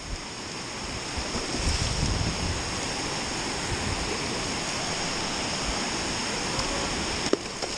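Steady rush of water pouring over a dam spillway into the river, with wind buffeting the microphone at times.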